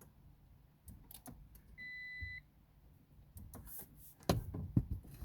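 A single electronic beep lasting about half a second, with scattered clicks before it and a few louder knocks near the end.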